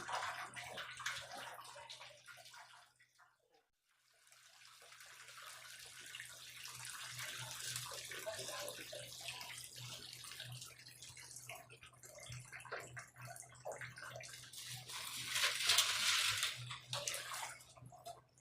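Water trapped in a Samsung front-load washing machine running and splashing out as it is drained by hand, the machine's drain having been blocked. The flow stops briefly about three seconds in, then picks up again and is heaviest near the end.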